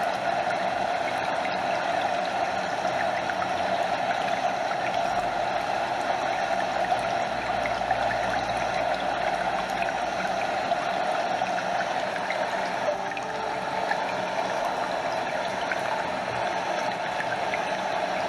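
Stream water flowing and trickling steadily, water lapping close by over the rush of a small waterfall, an even, unbroken wash of water sound.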